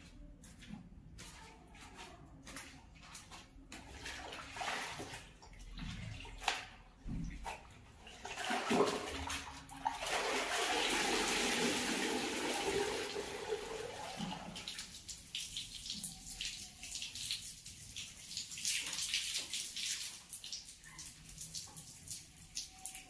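Hand-washing laundry in plastic buckets: scattered splashes and knocks, then for about five seconds in the middle a steady stream of water pouring off a soaked garment lifted out of the bucket back into it, ending in drips and small splashes.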